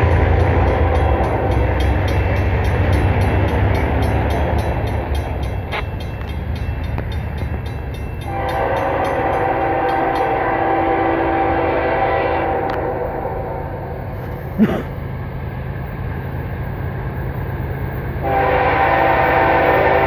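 Freight locomotive's air horn blowing for a grade crossing as the train approaches: a long blast starting about eight seconds in, then a second loud blast near the end, over a steady low rumble. A single sharp click comes about two-thirds of the way through.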